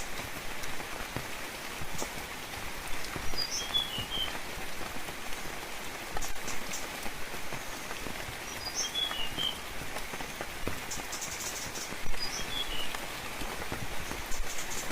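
Steady rainfall with scattered drops, and a small bird calling the same short chirping phrase three times, a few seconds apart.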